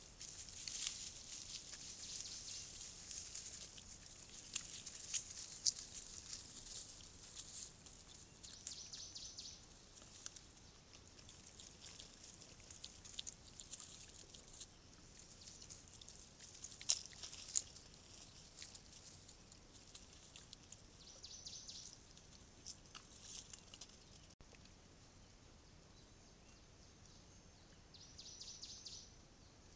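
Wild boar and their young foraging close by: faint scattered rustles and small crunches in the dry ground, with a couple of sharper clicks about halfway through. Three short high buzzes come in along the way.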